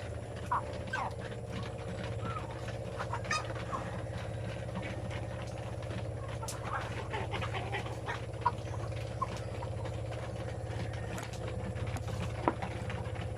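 A flock of free-range chickens clucking with many short, scattered calls over a steady low hum, with a few sharp taps, the loudest near the end.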